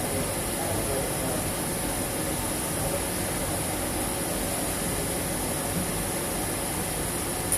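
Steady hum and hiss of running equipment, with a constant high-pitched whine on top, unchanging throughout.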